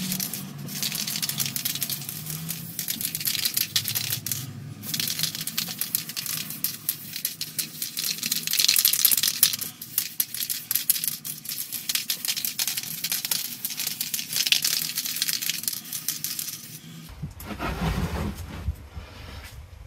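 Aerosol spray paint can hissing in repeated bursts of varying length, with small clicks and rattles among them. The hissing stops near the end, followed by a short low rumble of handling.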